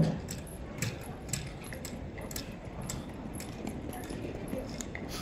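Footsteps clicking on a hard floor at walking pace, about two steps a second, over a low murmur of people's voices. A single sharp knock right at the start is the loudest sound.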